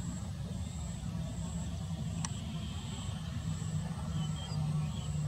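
Boeing 737 jet engines running at low thrust as the airliner taxis, a steady low rumble. A single sharp click comes about two seconds in.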